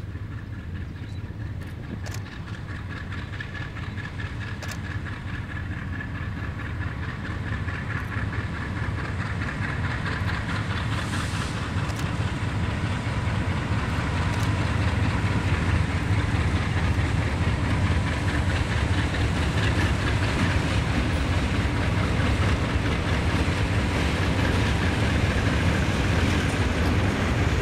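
Two diesel freight locomotives running as they approach and pass, then a long string of tank cars rolling by with wheels clacking over the rail joints. The sound grows steadily louder through the first half, then holds steady as the cars pass.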